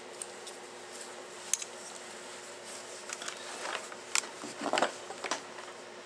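Light handling clicks and rustles of solder wire and tools, then a sharper click and a short hissing burst about four to five seconds in as a small handheld soldering torch is lit.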